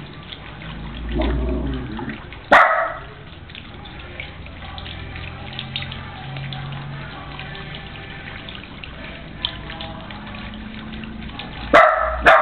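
Small garden water fountain splashing steadily into its basin. A short, loud, sharp sound cuts in about two and a half seconds in, and twice more in quick succession near the end.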